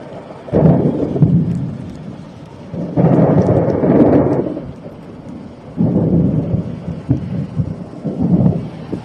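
Thunder rolling in four loud bursts, about a second in, at three seconds, near six seconds and just after eight, over a fainter steady hiss of rain.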